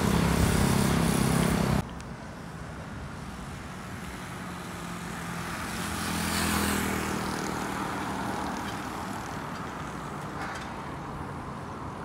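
Road traffic: a motor vehicle passes, its engine noise swelling to a peak about six seconds in and fading again. A louder rush of noise in the first two seconds stops abruptly.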